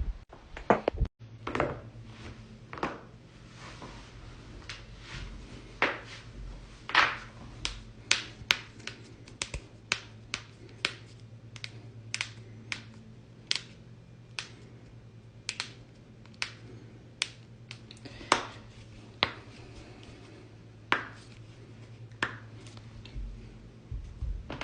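Joints being cracked: a long series of sharp, separate pops, about one a second and some louder than others, over a faint steady low hum.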